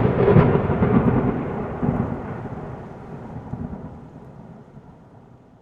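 Thunder rumbling: starts suddenly, loudest in the first two seconds, then rolls away and fades over about five seconds.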